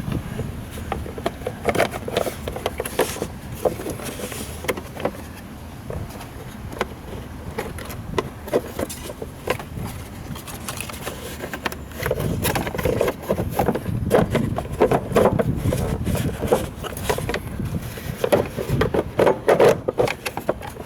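Hands handling parts at a car's battery: scattered clicks, knocks and scraping of plastic and metal, getting busier and louder about halfway through.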